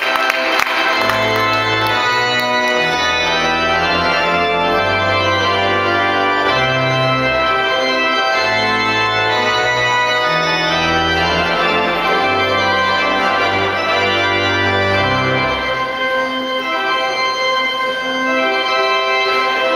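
Organ playing held chords over a slow-moving bass line; the bass notes stop about three-quarters of the way through while the upper chords carry on.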